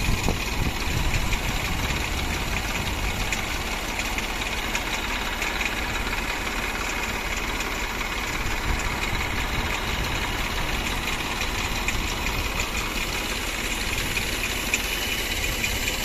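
Tractor engine running steadily while powering a tractor-operated crop sprayer.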